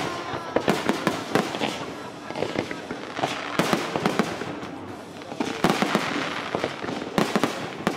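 Fireworks display: many sharp bangs and crackles going off in quick, irregular succession.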